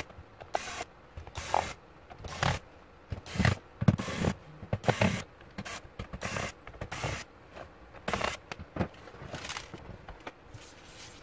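Screwdriver working the screws of a laptop's plastic base, with the case handled and shifted on a table: a string of short, irregular scrapes, clicks and knocks.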